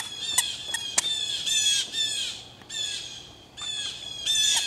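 Toddler's squeaker shoes squeaking with each step on concrete, a high, falling squeak about twice a second, pausing briefly a little past the middle. Two sharp taps sound within the first second.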